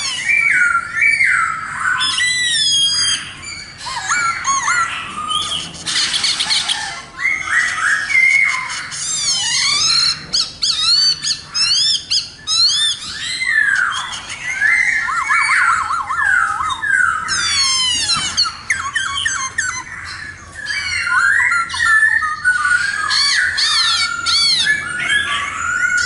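Khướu mun laughingthrush singing a long, varied song of loud whistles, rapid rising and falling glides and harsher squawking notes, with hardly a pause.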